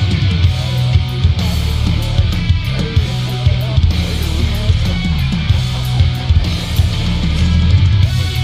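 Rock music with heavy distorted guitar and drums, played loud.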